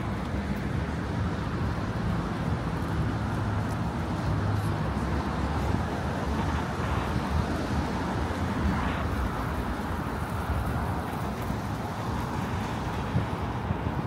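Road traffic: a steady rush of cars going by, swelling for a few seconds about midway as a vehicle passes closer.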